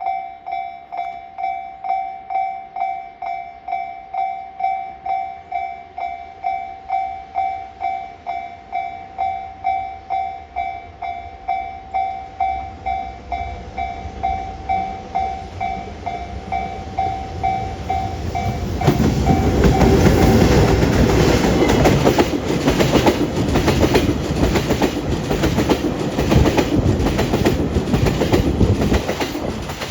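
Japanese level-crossing warning bell ringing at about three strikes every two seconds. About 19 seconds in, a freight train hauled by an EH200 electric locomotive with tank wagons arrives, covering the bell with loud running noise and the repeated clatter of wheels over rail joints.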